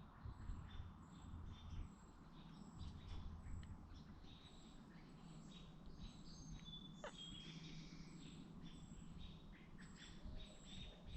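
Small birds giving a faint, busy series of short, high chirps, repeated over and over with one longer call about seven seconds in: alarm calls from birds agitated by barred owls.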